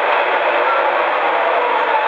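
Steady hubbub of a crowded hall: many people talking at once with no single voice standing out.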